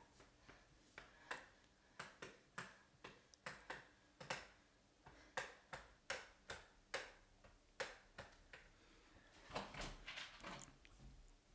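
A string of sharp, irregular clicks and taps, a few per second at most, in a quiet dark room, with a short rustling, rattling noise near the end as a hand works a door knob.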